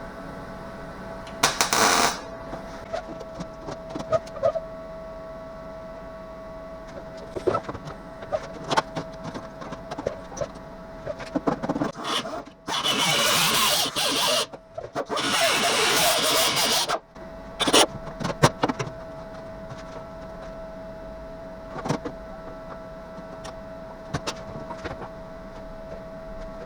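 MIG welder laying short welds on sheet metal: a brief crackling burst about a second and a half in, then two longer runs of crackle of about two seconds each past the middle, with scattered clicks between them over a steady hum.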